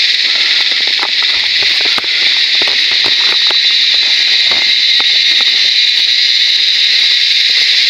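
A dense, steady, shrill chorus of forest insects, with faint scattered clicks beneath it.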